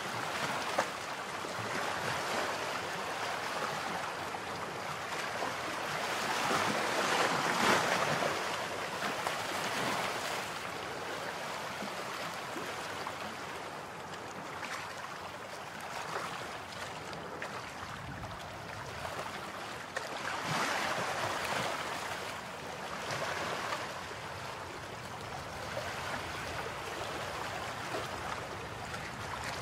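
Ocean surf breaking and washing onto a beach: a steady rushing hiss that swells and fades with each wave, loudest about seven seconds in and again about twenty seconds in.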